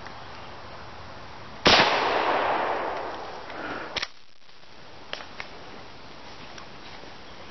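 A single 12-gauge Remington 870 pump shotgun shot firing birdshot about two seconds in, its echo dying away over about two seconds. A sharp double clack follows about four seconds in, then two faint clicks a second later.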